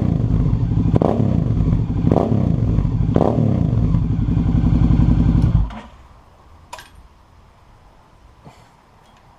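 Suzuki V-Strom 650's 645 cc V-twin running through an aftermarket Two Brothers Racing carbon-fibre exhaust. The throttle is blipped about four times, roughly a second apart, each a quick rise and fall in revs. The engine then shuts off suddenly just over halfway through, followed by a couple of faint clicks.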